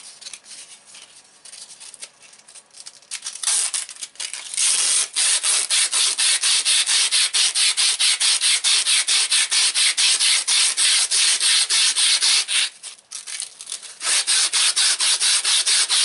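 Flat abrasive bar worked back and forth across the edge of a steel belt buckle, grinding down its sharp 90-degree corners. Light handling comes first, then a fast, steady scraping rhythm of about four strokes a second starts a few seconds in, with a short break near the end.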